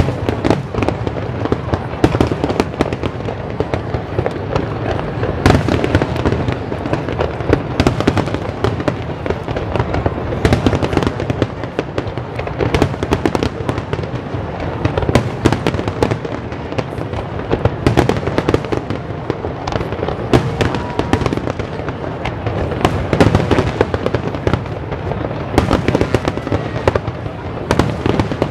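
Aerial fireworks display: a dense, unbroken barrage of shell bursts and crackle, with many sharper loud reports scattered throughout.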